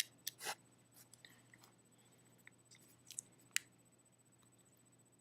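A few faint plastic clicks and scrapes of a mobile phone being opened by hand, its back cover and parts pried out, with the sharpest clicks at the start and about three and a half seconds in.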